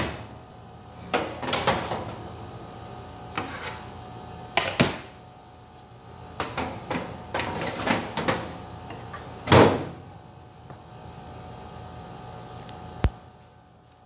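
Metal baking tray clanking and scraping against a countertop electric oven as it is pulled out of the oven, in a string of separate knocks, the loudest about two thirds of the way through. One sharp click comes near the end.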